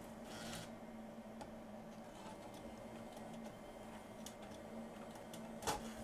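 Factory six-disc in-dash CD changer from a 2002 Ford Ranger stereo loading a disc: a faint motor-and-gear whir with light ticks, then a click near the end.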